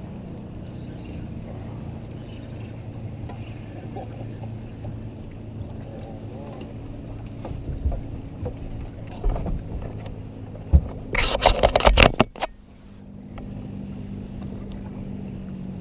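A boat's motor hums steadily as a hooked largemouth bass is brought in. About eleven seconds in, a loud rattling, thrashing burst lasts about a second as the fish is landed. After it the hum carries on at a slightly different pitch.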